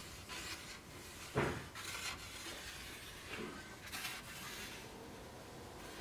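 Thin wooden strips being handled and shifted on a workbench: quiet rubbing and light wood knocks, the loudest about a second and a half in.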